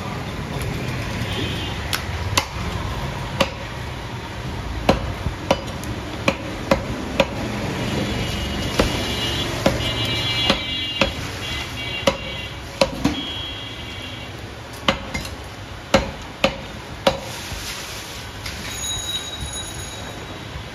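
Heavy butcher's cleaver chopping beef into chunks on a wooden chopping block: about twenty sharp chops at uneven intervals, roughly one every half second to second.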